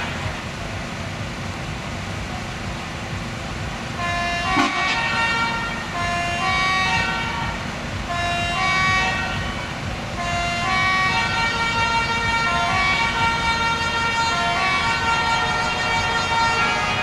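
A tune of held, horn-like notes stepping up and down in pitch, starting about four seconds in, over a steady low rumble.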